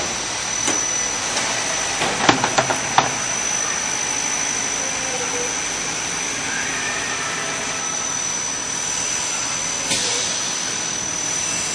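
Spiral paper core making machine running steadily: an even mechanical whirring hiss with a constant high whine, and a quick run of sharp clicks about two to three seconds in.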